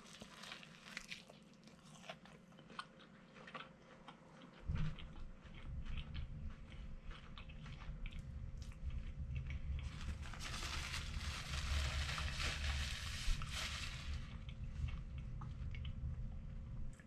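A person biting into and chewing a crispy fried chicken sandwich close to the microphone: crunching of the breaded coating and wet chewing. Faint at first, louder from about five seconds in.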